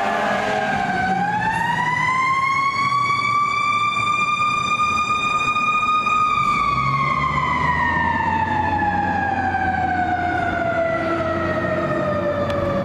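Fire engine siren: its pitch dips, then winds up about a second in to a steady high pitch, holds for a few seconds, and falls slowly away over the second half. A low rumble sits underneath in the second half.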